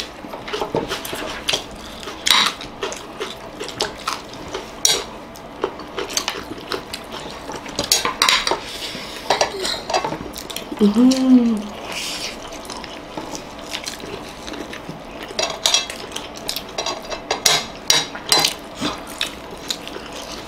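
Metal spoon and fork clinking and scraping against ceramic plates, in irregular, scattered clicks. A short voice sound rises and falls about eleven seconds in.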